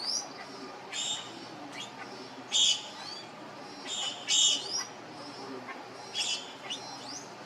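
Birds calling: short, high, harsh chirps with quick upward-sliding whistles, repeated about once a second.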